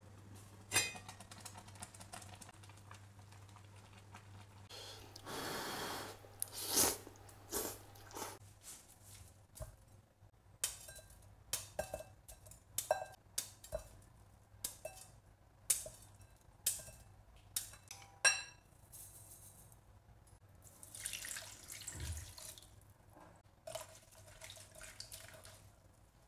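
Broccoli being cut into florets with a knife over a glass bowl: a series of sharp taps and clicks as the blade and the falling pieces hit the glass. Near the end, water runs into the bowl for about a second, over a faint steady low hum.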